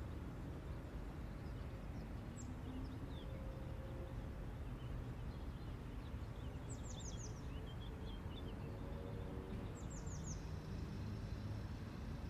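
Outdoor nature ambience: a steady low rumble with birds chirping over it. A quick run of four falling chirps comes twice, about seven and ten seconds in.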